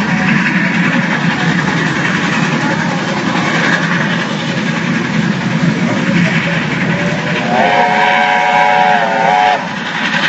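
Steam train running with a steady rumble, and its steam whistle blown once near the end, held for about two seconds before cutting off.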